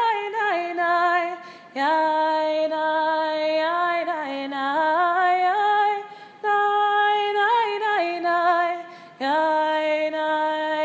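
A woman singing a wordless melody alone, without accompaniment, on syllables like "yum ba dum bum", in about four phrases with short breaks between them.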